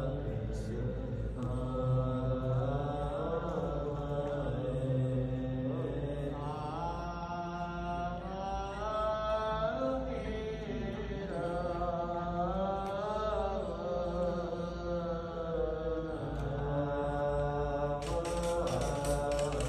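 Buddhist chanting: a slow, melodic chant with long held notes that glide up and down over a steady low hum. A quick run of sharp clicks comes near the end.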